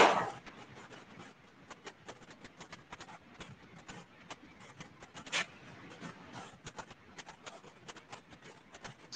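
Handling noise on a call microphone: a sharp knock at the start and another about five and a half seconds in, with faint scattered clicks and crackle between them.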